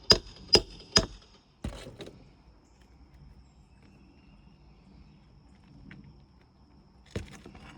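Hammer blows on metal: three sharp, ringing strikes about half a second apart, then a duller knock. They are freeing a missed roofing nail so the asphalt shingle can be pulled out. A few small clicks and scrapes come near the end.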